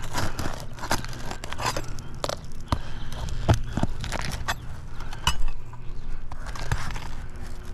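Irregular scraping and sharp clicks of a tool working under an asphalt shingle at its nails, with crackling of the brittle shingle.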